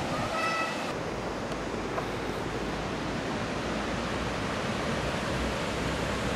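Steady rushing noise of river water flowing, mixed with wind on the microphone. A brief pitched tone sounds about half a second in.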